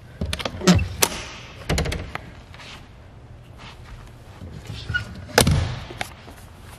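Fiberglass cooler hatch in a boat's bow floor being opened and shut. Its stainless flush pull latch clicks and the lid is lifted with a few sharp knocks in the first two seconds, then the lid drops shut with one loud thud about five and a half seconds in.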